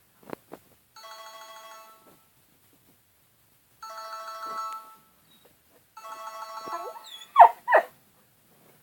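A cell phone ringtone plays in three short bursts, then near the end a boxer puppy gives two loud, short cries in reaction to it.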